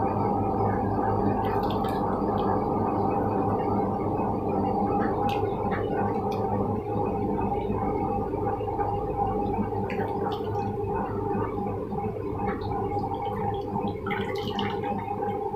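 Wet squelching and occasional small splashes of grated coconut being squeezed by hand in water to press out coconut milk. A steady low hum runs under it and is the loudest sound.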